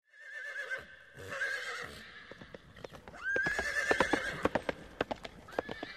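Horse whinnying four times over galloping hoofbeats, the hoofbeats coming thick and fast in the second half.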